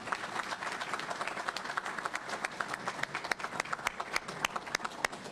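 Audience applauding, thinning out to a few last scattered claps near the end.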